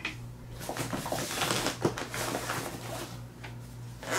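Handling noises: rustling of a nylon backpack and fabric being moved, with one sharp knock just under two seconds in, over a steady low hum.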